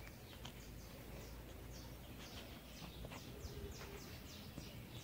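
Faint chirping of small birds: a run of short, high chirps that slide downward in pitch, several a second.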